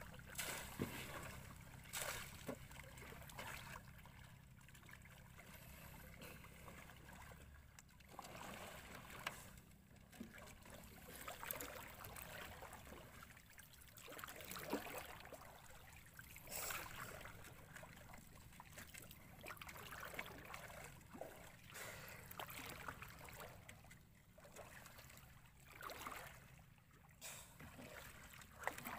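Quiet water lapping and trickling against the hulls of drifting outrigger boats, rising and falling in uneven swells, with a few brief sharp knocks or splashes.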